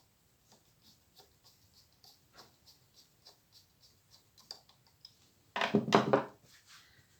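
Small metallic clicks and taps, two or three a second, from hand work on the handwheel and bobbin-winder assembly of a Victoria Lady 6800 F sewing machine. About five and a half seconds in comes a louder, brief burst of clattering noise.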